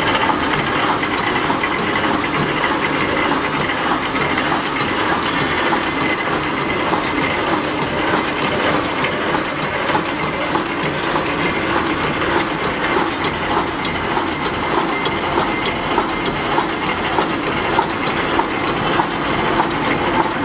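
Fully automatic welded wire mesh roll machine running: a steady, dense mechanical clatter with rapid fine clicks as it welds thin wire into mesh and winds it onto the roll.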